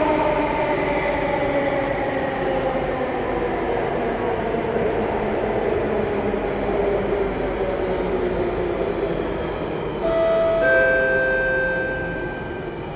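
Singapore MRT Circle Line train running through a tunnel, a steady rumble with a whine that falls slowly in pitch as the train slows. About ten seconds in it gets louder and steady higher whining tones join as the train draws into the station.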